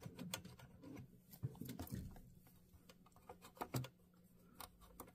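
Faint scratching and scattered light clicks of a pipe cleaner being worked around inside a Kenmore sewing machine's shuttle area, brushing out accumulated dust.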